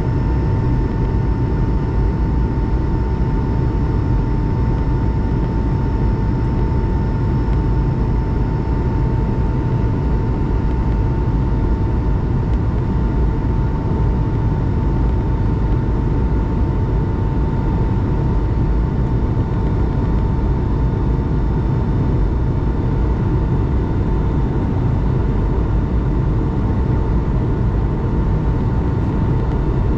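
Steady cabin noise of an Airbus A220-300 in flight: a loud, deep rumble of airflow and Pratt & Whitney PW1500G geared turbofans, with a thin, steady high whine above it.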